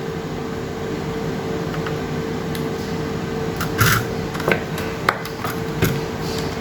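Steady room background with a constant hum from air conditioning, broken by a few light clicks and taps of handling on the repair bench.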